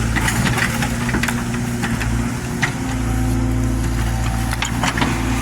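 Excavator's diesel engine running steadily, with a few sharp knocks from the machine working.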